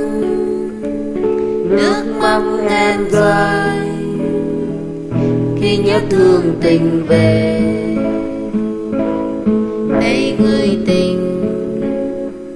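Instrumental music led by acoustic guitar.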